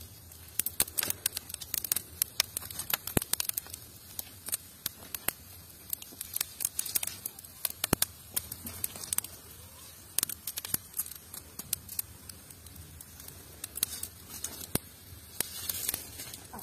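Dry twigs and branches crackling with sharp irregular pops as they catch fire in a clay tandoor, with rustling and snapping as more sticks are pushed in.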